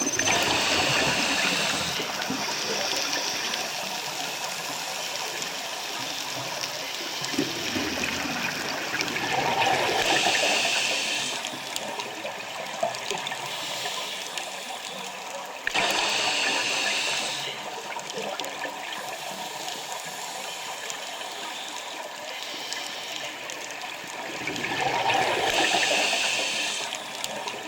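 Scuba diver breathing through a regulator underwater: a bubbling rush of exhaled air comes every several seconds, with quieter stretches in between.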